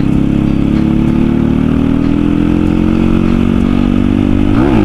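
Motorcycle engine running steadily under way. Near the end its note dips sharply and climbs straight back.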